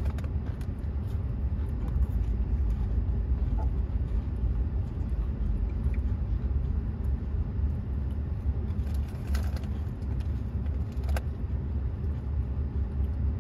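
Ford F-150 pickup heard from inside its cab while moving slowly: a steady low engine and road rumble, with a couple of short clicks later on.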